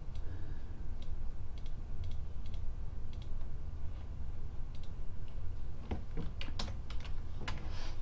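Scattered clicks and taps of a computer keyboard, coming more thickly about six to seven and a half seconds in.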